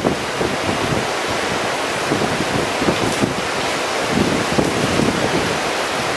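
Typhoon wind and rain: a steady, loud rush of rain and wind, with gusts buffeting the microphone in uneven low flutters.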